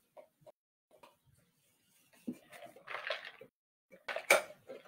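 Drinking through a straw from a plastic tumbler: a brief quiet sip, with faint handling sounds of the cup before it.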